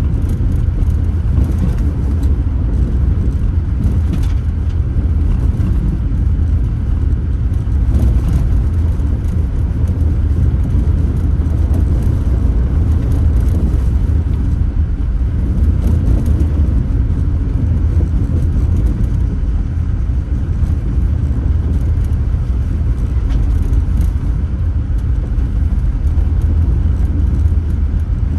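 Steady in-car road rumble of a car driving: low engine and tyre drone with road noise, with a few faint bumps from the road surface.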